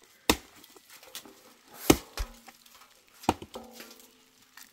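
Dry tree branches being snapped by hand: three sharp woody cracks about a second and a half apart, the middle one loudest, each followed by a brief splintering rattle.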